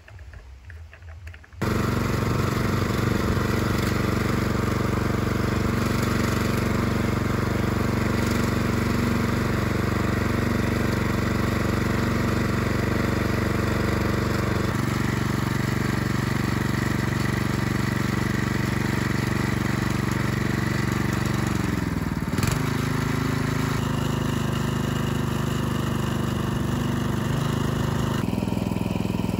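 A small engine running steadily at a constant speed, coming in abruptly about one and a half seconds in. Its pitch dips briefly and recovers about three-quarters of the way through.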